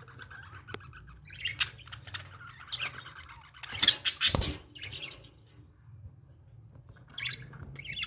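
Budgerigars chirping and chattering in short, scattered calls, with a louder, noisier burst about four seconds in.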